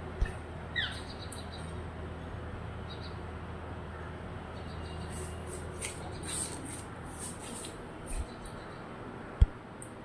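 Indian parrot giving one short falling squawk about a second in, then a run of small high clicks and crackles from its beak as it eats rice. A few dull thumps, the sharpest near the end, over a steady low hum.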